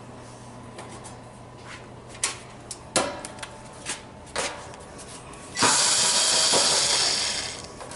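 Sharp metal clicks and knocks of oven panels and fasteners being handled, then a power tool, such as a driver backing out screws, running for about two seconds near the end.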